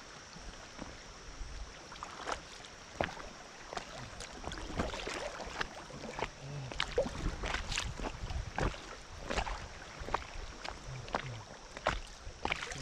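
Fast floodwater splashing and slapping around an Intex inflatable kayak, with many irregular sharp ticks and splashes over a steady low rumble of moving water.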